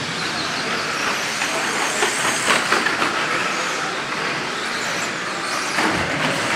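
Several 2WD short course RC trucks racing on dirt: a continuous whine of electric motors mixed with tyre and chassis noise, with a few sharper clatters from bumps or landings about two and a half seconds in and near the end.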